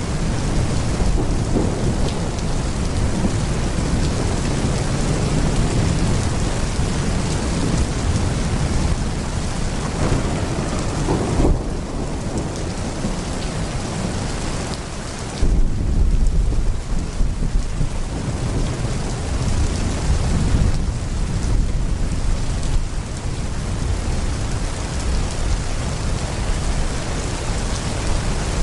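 Heavy rain pouring steadily, with rumbles of thunder; a louder roll of thunder breaks in suddenly a little past halfway and dies away over a few seconds.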